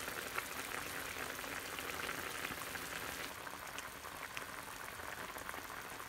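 Pan of clams steaming in butter and a splash of water under a plate used as a lid, bubbling and sizzling steadily with small crackles as the shells steam open.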